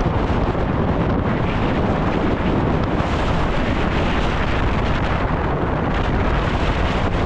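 Wind rushing over a helmet-mounted camera's microphone on a downhill mountain bike at speed, with the tyres rolling over dirt and rock and a steady rattle from the bike.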